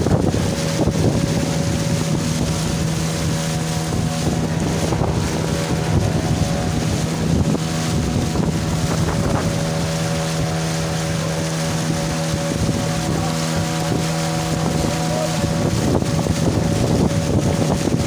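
A boat motor running steadily at speed on a wooden dugout canoe. Water rushes and splashes along the hull, and wind buffets the microphone.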